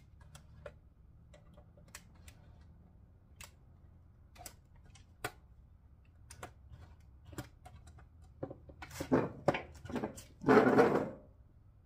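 Light clicks and knocks of a metal radio mounting bracket and its screws being handled and adjusted. Near the end come a few louder rattles and one longer, louder burst of noise lasting about a second.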